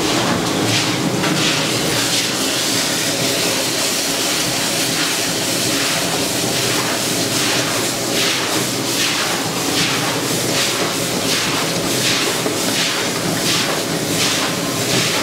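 Onion and spice masala sizzling in hot oil in an iron kadai, a steady hiss, with a metal ladle stirring and scraping the pan in rhythmic strokes, a little under two a second, from about halfway through. The masala is being fried down until the oil separates.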